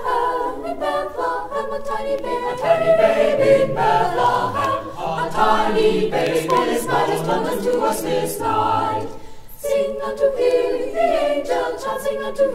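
Mixed school choir of sopranos, altos, tenors and basses singing a Christmas carol a cappella in parts. The singing pauses briefly about nine and a half seconds in, then goes on.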